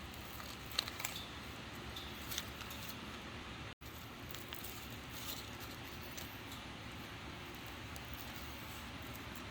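Faint steady background hum with a few light clicks and taps, the loudest about a second in; the sound drops out for an instant just before 4 seconds.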